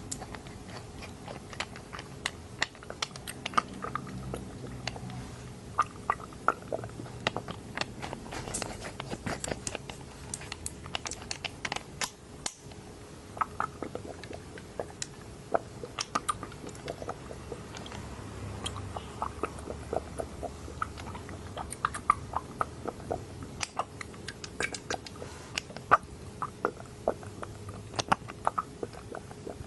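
Dropper worked close to the microphone for ASMR: irregular sharp, wet clicks and crackles, several a second, some with a brief squeaky tone.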